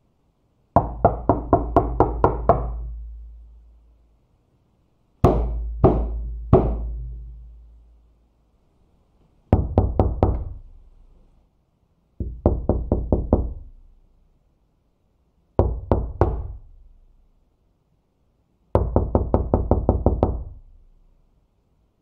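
Knocking on a door in six separate bouts: quick runs of many raps alternate with shorter sets of three or four. Each bout leaves a low, hollow ring dying away after it.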